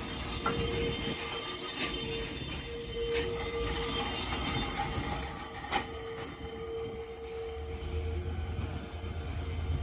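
Train wheels squealing as a locomotive-hauled train rolls slowly past: several steady high-pitched squeals, a lower squeal tone that comes and goes, and a few sharp clacks. A low drone swells near the end.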